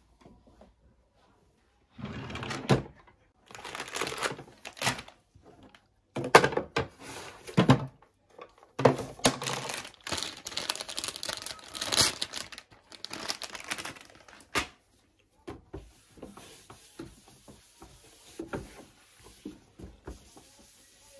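Household items being handled and put into a wooden nightstand drawer: rustling plastic packaging and light knocks on wood, loud and irregular. Near the end a tissue rubs softly across the drawer's bottom.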